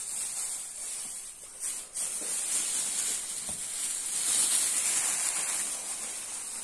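Steady high hiss that swells a little about four seconds in.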